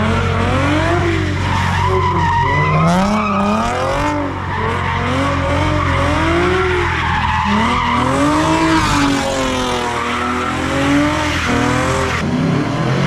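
Car tires screeching through a sideshow spin, the squeal wavering up and down in pitch over the steady drone of a revving engine.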